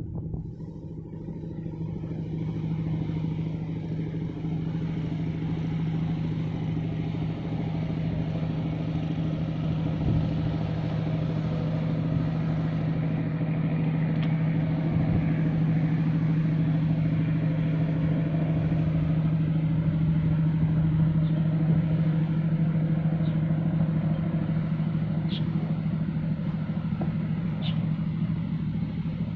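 Boat engine running with a steady low hum, growing louder through the first half and easing a little near the end.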